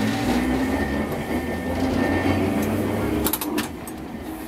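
Hiroshima Electric Railway 650-series streetcar running, heard from inside the car: a steady mechanical rumble of motors, gears and rattling body with a faint steady whine. About three seconds in the rumble drops and a few sharp clicks follow.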